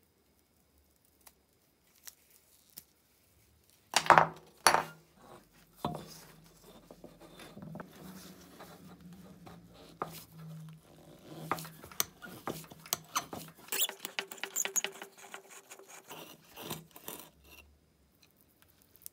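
A screwdriver scraping, clicking and turning against a rusty metal disc from an old wick stove, with a few sharp knocks of metal on the wooden bench at the start. A short squeal lasts about two seconds partway through.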